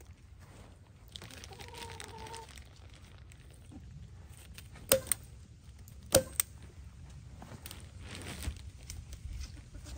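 Light-duty hand staple gun snapping twice in quick pairs, driving staples through plastic sheeting into oak, with the plastic sheeting crinkling between shots.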